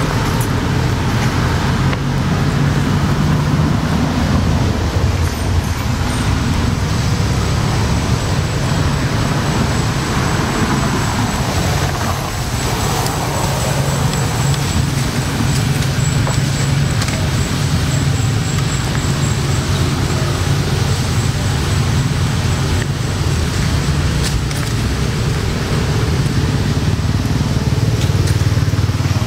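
Steady low rumble of road traffic, engines humming without let-up and no single event standing out.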